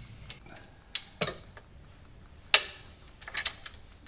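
Metal tool clinking against a bolt while the starter mounting bolt is loosened: a handful of separate sharp, ringing clinks, the loudest about two and a half seconds in.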